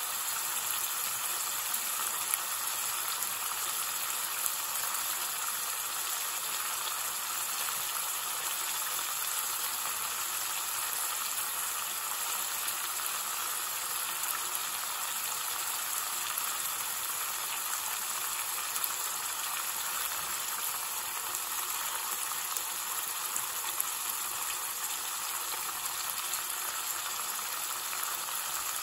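Thick chicken curry sauce sizzling and bubbling in an aluminium pan over high heat as it reduces: a steady frying hiss with occasional small pops.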